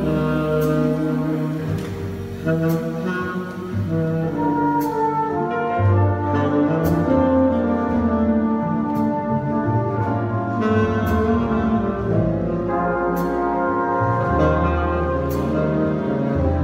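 Jazz big band playing: saxophones and brass holding layered chords, with a sharp accent about every two seconds.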